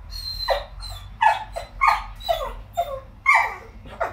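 Whippet crying in a string of short, high whines that each slide down in pitch, about two a second. He is frustrated at a chew bone stuck inside his rubber ball that he can't get out.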